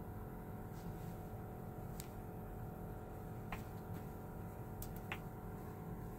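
Quiet room tone, a low steady hum, with five faint, sharp clicks and taps of handling spread through it.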